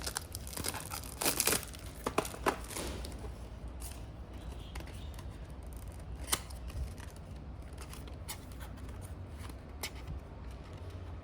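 Box packaging being opened and handled: close scraping, tearing and crinkling for the first few seconds, then occasional light clicks over a low steady hum.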